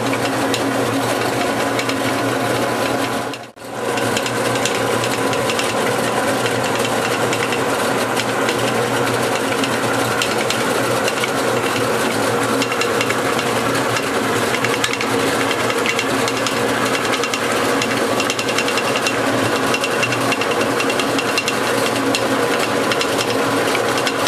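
Motorized corn mill (an Arenas mill from Tlaxcala) running and grinding corn kernels. It makes a steady, loud grinding rattle over a continuous motor hum, and drops out for an instant about three and a half seconds in.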